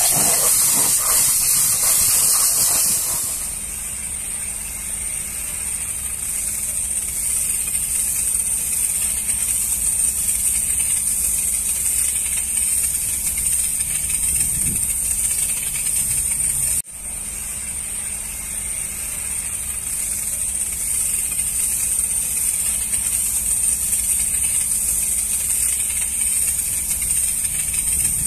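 High-pressure washer jet spraying water onto a tanker truck: a steady hiss, loudest for the first three seconds, over a low steady hum. The sound drops out for an instant about two-thirds of the way through.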